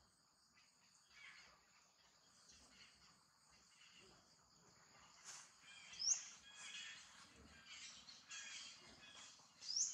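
Birds chirping over a steady high insect drone, with two sharp, high squeaks, about six seconds in and near the end.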